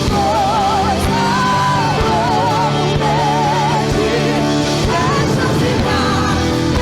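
Live band music in a rock style: a lead melody held in long notes with a wide, steady vibrato over sustained bass and chords.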